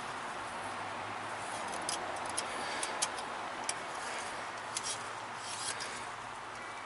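Steady background hiss with a scattered handful of light, sharp clicks and rubbing.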